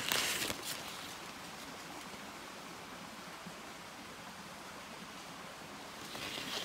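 Brief rustling of a cotton work glove against plant stems as a snail is picked off, during the first moment, then a steady faint outdoor hiss with a little more rustling near the end.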